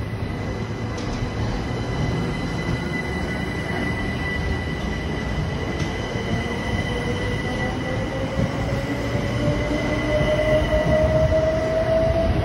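Eight-car Class 377 Electrostar electric multiple unit pulling out and accelerating past the platform. Its wheels rumble on the track under a steady high-pitched tone, and from about halfway through a whine rises steadily in pitch as the train picks up speed.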